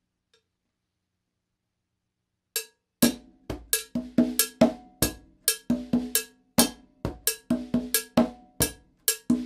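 About two and a half seconds of near silence, then a stick starts a modified cascara pattern on a mounted cowbell together with a one-handed conga tumbao, about four strikes a second, the conga's open tones ringing under the bell.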